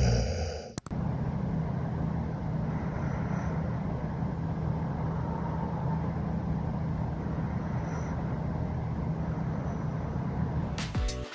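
A steady low rumbling hum that runs evenly without rhythm, after a louder sound is cut off with a click just under a second in. Music starts near the end.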